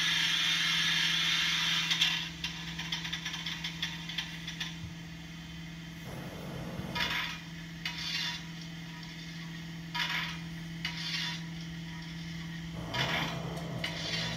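Steam locomotive sound effects from a model locomotive's DCC sound decoder, playing without a break as the turntable turns it. A steady steam hiss for about two seconds gives way to fine ticking, then short hissing bursts in pairs every few seconds over a low steady hum.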